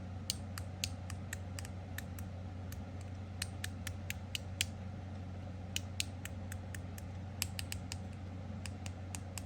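Fidget sliders being slid through their detents, giving a run of small, sharp clicks at an uneven pace of a few a second. The clicks are being counted: eight detents on one slider and six on the other.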